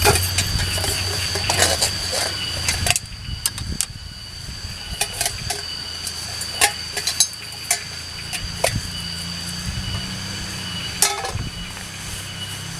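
Scattered knocks and clicks of hand work with wood and tools, irregular and sharp, over a steady high-pitched tone and a low hum.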